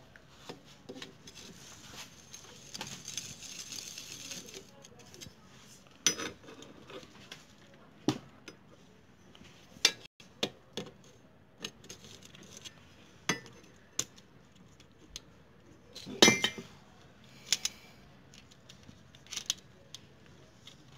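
Small steel engine parts and a bolt clinking and tapping against the aluminium crankcase of a motorcycle engine as the gearshift drum's stopper arm is fitted by hand. The clinks are scattered and sharp, the loudest about sixteen seconds in, with a stretch of rustling handling noise near the start.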